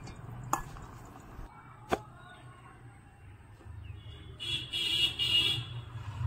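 A steel spoon against a stainless steel bowl while mixing chopped green chillies with spice paste for pickle: two sharp clinks in the first two seconds, then a longer, louder ringing scrape about four seconds in.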